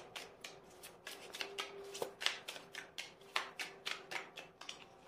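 A deck of Tarot de Marseille cards being shuffled by hand: a soft, irregular run of card flicks and slaps.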